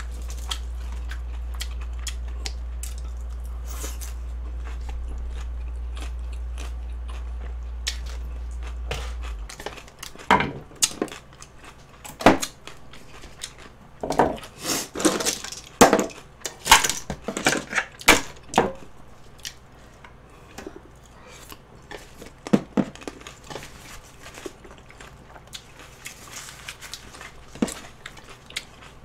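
Close-up chewing and crunching of fresh salad vegetables, with a cluster of sharp crunches in the middle and softer chewing near the end. A steady low hum underneath stops about a third of the way in.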